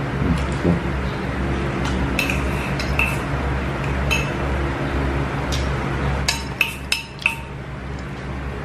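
Chopsticks and a spoon clinking against stainless steel bowls and a serving plate while eating: a scatter of short metallic clinks with brief ringing, most of them between about two and seven and a half seconds in.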